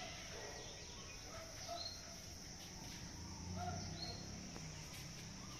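Outdoor ambience: a steady high insect drone with a few short bird chirps scattered over it.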